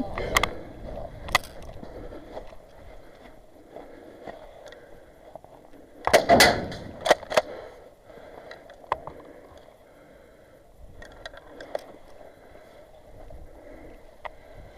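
Spring-powered airsoft pump shotguns firing and being racked: sharp pops and clicks scattered through, the loudest about six seconds in, followed by several lighter clicks.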